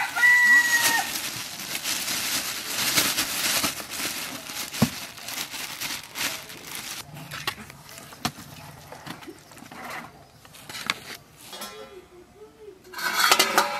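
Thin plastic bag crinkling and rustling as raw chicken pieces are tipped out of it onto a steel plate, loudest over the first several seconds and then fading to scattered rustles.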